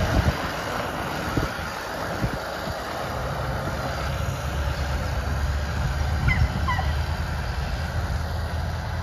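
Scania V8 diesel tractor unit pulling away slowly. Its engine is a steady low rumble that grows stronger about halfway through.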